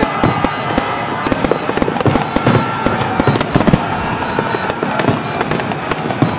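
Fireworks display: a dense, continuous barrage of bangs and crackling bursts, many per second.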